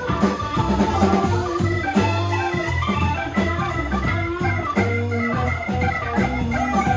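Live band music in an instrumental passage: held organ-like keyboard chords over bass guitar and a drum kit keeping a steady beat.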